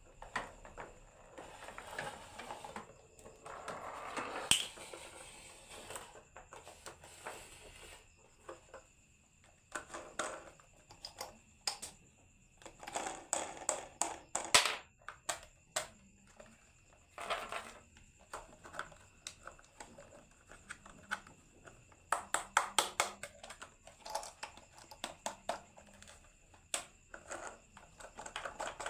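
Marbles rolling and clattering down a marble run: irregular runs of clicks and rattles, with several quick bursts of rapid ticking.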